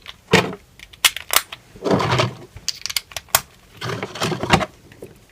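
Freshly assembled MuFang 3x3 plastic speedcube being handled and turned: a run of sharp plastic clicks with several short scraping turns of its layers.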